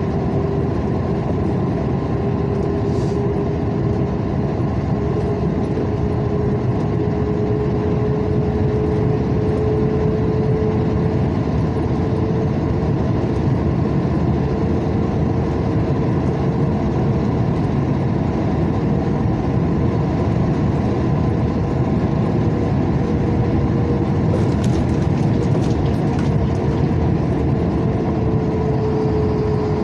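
A road vehicle cruising steadily on freshly resurfaced asphalt, heard from inside the cabin: continuous engine and tyre noise with a hum that rises a little in pitch and falls back again.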